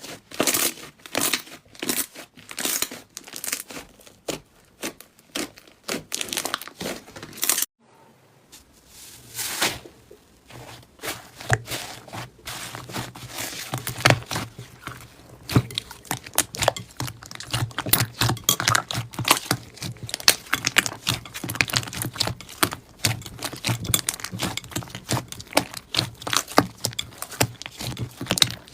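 Slime being squeezed, pressed and stretched by hand, making quick crackling pops and sticky clicks. About eight seconds in it cuts off briefly, then the crackling comes back denser.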